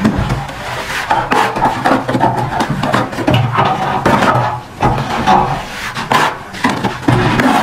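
Steel plastering trowel scraping and scooping wet cement mortar from a plastic tray and across a hawk, in irregular scrapes and light knocks.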